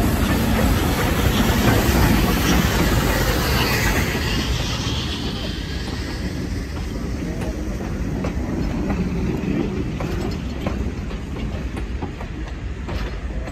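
Steam train hauled by 2-8-0 steam locomotive 3716 passing, its wheels clicking over the rail joints. It is loudest, with a hiss, for the first few seconds, then quieter with scattered wheel clicks.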